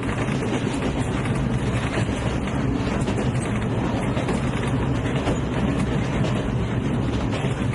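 Train in motion, heard from on board: a steady low rumble of running noise.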